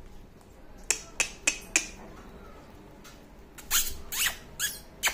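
Labrador puppies squeaking and yelping in short, high-pitched cries that fall in pitch. Four come in quick succession about a second in, and a second flurry comes near the end.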